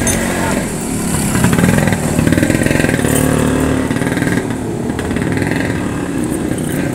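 Motorcycle engine running, its sound fairly steady with small rises and falls in pitch.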